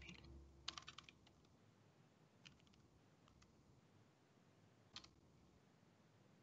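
Faint computer keyboard keystrokes over near silence: a quick run of four or five keys about a second in, then a few single clicks.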